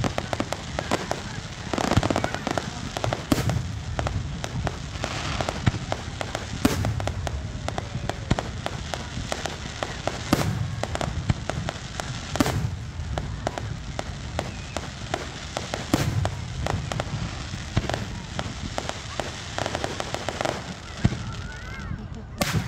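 Fireworks display: aerial shells bursting with deep booms every second or two, over a dense crackle of many smaller pops.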